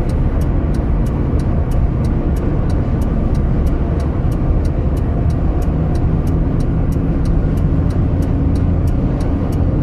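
Steady low rumble of a car's engine and tyres on the highway, heard from inside the moving car. A faint, regular high ticking about four times a second runs through it.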